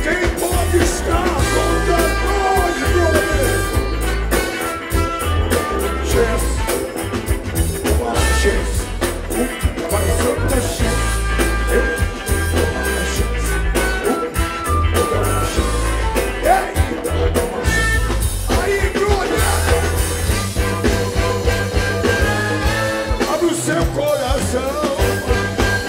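Live soul-funk band playing loudly, with heavy bass and drums under held instrumental notes, and a male singer on a hand-held microphone.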